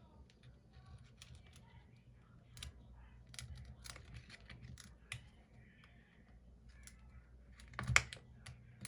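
A thin flexible metal opening tool clicking and scraping against the edge of an iPhone 14 Pro Max's cracked screen as it is worked into the seam. It makes a string of irregular small clicks, with one louder click about eight seconds in.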